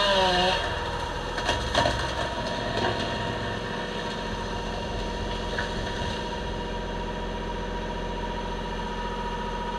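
An engine running steadily, its pitch dropping just at the start, with a few sharp cracks between about one and a half and three seconds in as a felled cherry tree goes over.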